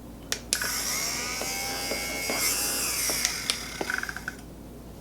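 Kelite rechargeable fabric lint remover switched on with a click, its small motor and spinning blades giving a high, steady whirr for about four seconds. The whine drops slightly in pitch about three seconds in, then the motor stops with a few clicks.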